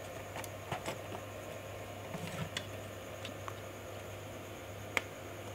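Keys on an Asus laptop keyboard pressed one at a time while navigating the BIOS menus: several light clicks at uneven intervals, the sharpest about five seconds in. A steady low hum runs underneath.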